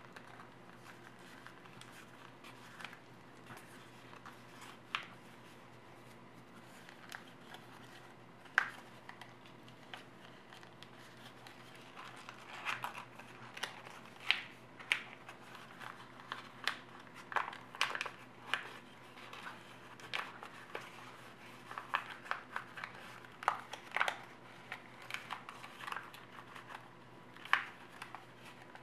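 Origami paper crinkling and crackling under the fingers as a folded paper boat is pulled open and shaped. The crackles are sparse at first and come thick and fast from about halfway, over a faint steady hum.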